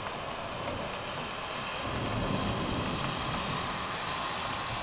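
Steady hissing wash of rain during a thunderstorm, mixed with traffic on the wet street; a low rumble swells about two seconds in.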